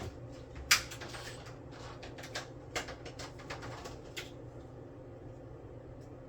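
Hands handling PC memory modules: a sharp plastic click about a second in, then a scatter of lighter clicks and taps that stops about four seconds in, over a faint steady hum.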